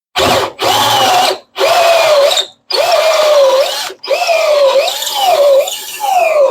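Power drill driving a 1.5-inch hole saw into maple, run in five short trigger bursts. The motor whine sags and recovers again and again as the saw bites, a drill straining hard enough to scorch the wood.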